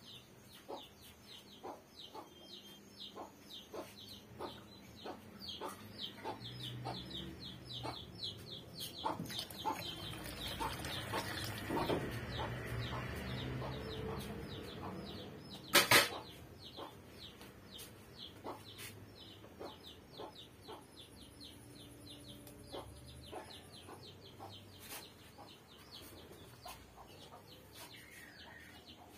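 Curry gravy simmering in a metal kadai, with a steady run of small pops and ticks and one sharp knock about 16 seconds in.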